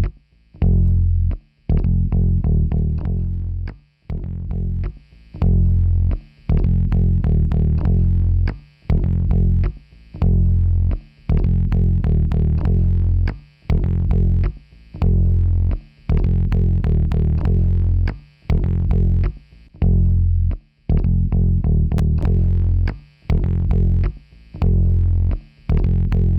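Music: a heavy, distorted bass and guitar riff repeating in short phrases, each broken by a brief gap about once a second.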